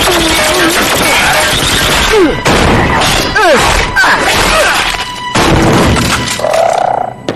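Cartoon fight sound effects: energy blasts, crashes and hits over background music, with swooping zap sounds about three seconds in.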